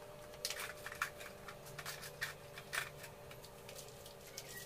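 Hands working on motorcycle rack or top-box parts make a quick run of light clicks and rustles, thinning out after about three seconds, over a steady faint hum.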